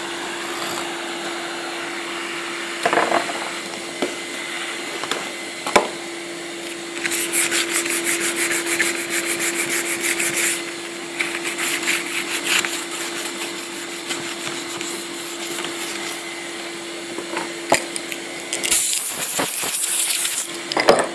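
Compressed-air nozzle blasting alkyd paint off a wooden door panel, in two long hissing bursts, the first a few seconds in and pulsing, the second near the end, over a steady hum. A few sharp knocks come before the first burst.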